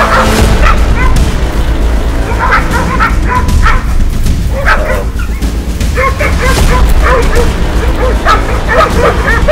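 Hunting dogs barking and yelping in quick, excited bursts as they bay a feral hog, over a steady low rumble.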